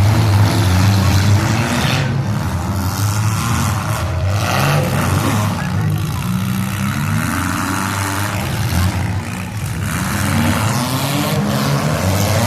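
Demolition derby cars' engines revving hard, several at once, their pitch rising and falling as the cars accelerate and back up in the arena, with a few brief louder bursts of noise.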